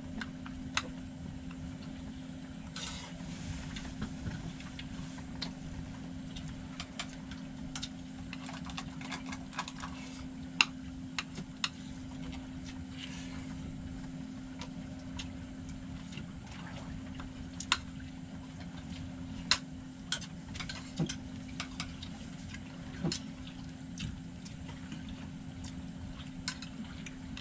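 Fishing boat's engine running with a steady hum, with scattered sharp clinks of spoons on plates as people eat.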